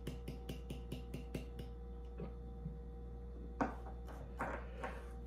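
The last of a can of lager glugging out into a glass mug in quick, even pulses, about six a second, stopping about a second and a half in. Then a few soft knocks as the aluminium can is set down on the wooden table.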